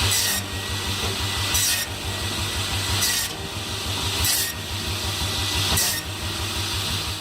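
Homemade powered woodcutter cutting wood: a steady motor hum with a rasping cutting stroke about every second and a half, five in all.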